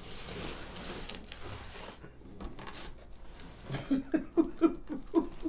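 Rustling handling noise at first, then, about two seconds from the end, a person laughing in quick repeated bursts.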